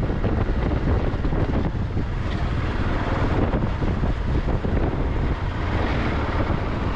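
Husqvarna 701 enduro's single-cylinder engine running steadily as the bike rides along a gravel track, with wind noise on the microphone.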